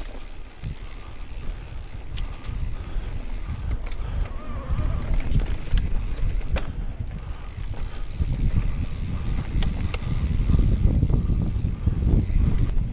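Mountain bike rolling fast down a dirt forest trail: a rumble of tyres and wind buffeting on the microphone, with sharp clicks and rattles as the bike goes over roots and bumps. It grows louder from about eight seconds in.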